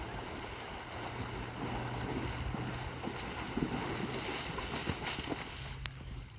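A horse with a rider wading through a muddy dam, water splashing and churning around it, then climbing out up the bank about four seconds in. Wind buffets the microphone throughout.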